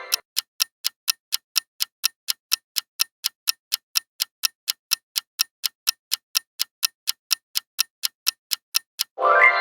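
Countdown-timer ticking sound effect: even, crisp ticks about four times a second. Near the end a short pitched chime-like sound effect comes in and fades.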